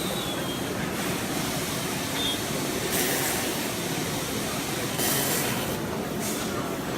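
Steady mechanical din of robot machinery running, with two short hissing bursts, one about three seconds in and a longer one around five seconds in.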